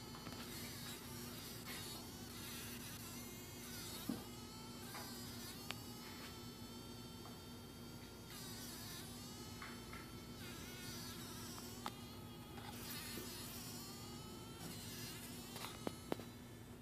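A large fly caught in a spider's web buzzing its wings in bursts as it struggles, the buzz wavering up and down in pitch. A few sharp clicks break in, two of them close together near the end.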